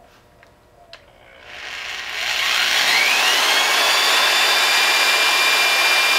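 Corded electric drill with a small pilot bit starting up about a second and a half in. Its motor whine rises in pitch and then runs steady at full speed.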